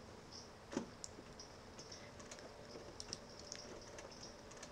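Faint, irregular clicks and ticks, the sharpest about three quarters of a second in, over low room noise.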